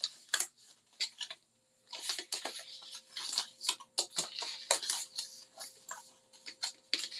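Scored cardstock being folded and creased by hand: quick, irregular rustles and crackles of stiff paper against the craft mat, with a short pause about a second and a half in.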